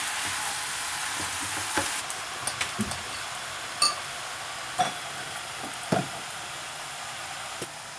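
Spinach, kale and other greens sizzling in a hot frying pan of olive oil as they are stirred with a wooden spoon: a steady hiss with a few short clicks and knocks of the spoon on the pan.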